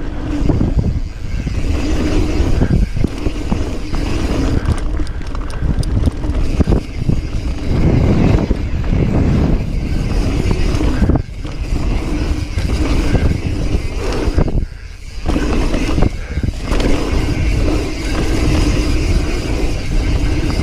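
Ride noise from a mountain bike descending dirt singletrack: wind buffeting the camera microphone over the rumble of tyres on dirt, with knocks and rattles from the bike over bumps. It dips briefly twice.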